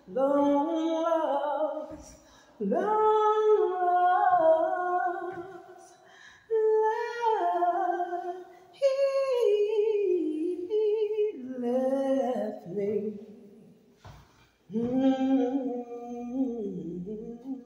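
A woman singing solo with no accompaniment, in drawn-out phrases of held notes that slide up and down in pitch, with short breaks for breath between phrases.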